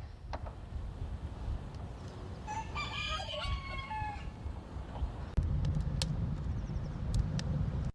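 A rooster crows once, about two and a half seconds in, over a low rumble that gets louder about five seconds in.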